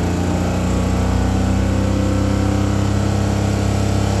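2000 Oldsmobile Bravada's 4.3-litre V6 held flat out at a steady high rpm, running on a failing rod bearing moments before it comes apart.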